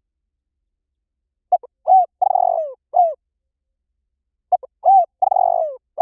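Spotted dove calling: a phrase of short coos ending in a longer, falling coo, given twice about three seconds apart with dead silence between.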